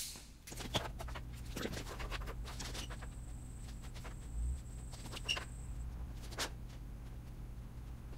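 Scattered light knocks and footsteps as a wooden door laid on a folding table is shifted and lined up, over a low steady hum.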